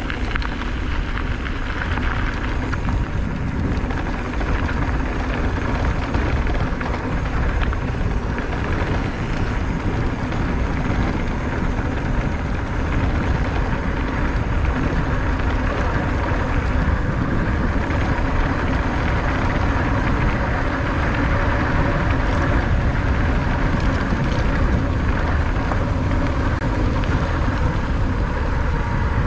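Electric mountain bike riding along a hard-packed dirt trail: a steady rush of knobby tyres rolling over dirt and gravel, mixed with wind rumble on the camera microphone.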